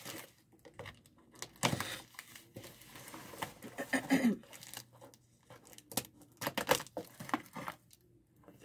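Packaging being crinkled, rustled and torn by hand as a box is unpacked, in irregular bursts.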